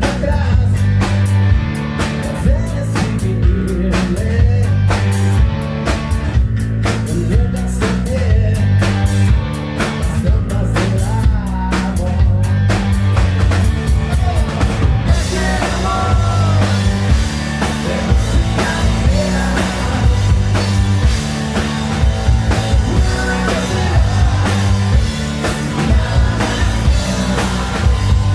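Hard rock music played by a band, with a steady drum kit beat and bass.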